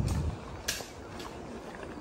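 Footsteps crunching on a gravel track: a sharp step about two-thirds of a second in and a fainter one a little later, over a steady outdoor background. A brief low rumble at the very start.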